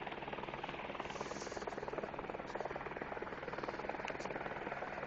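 Helicopter running steadily nearby, its rotor beating in rapid, even pulses, with a few faint sharp clicks.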